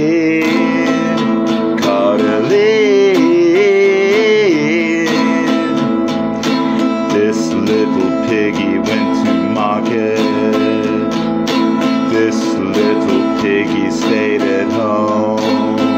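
Acoustic guitar strummed steadily, with a man's voice singing long wavering notes over it for the first few seconds, then the guitar carrying on alone.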